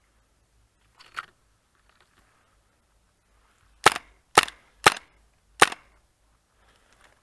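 Airsoft gun firing four single shots in quick succession, each a sharp crack about half a second apart, with a fainter snap about a second in.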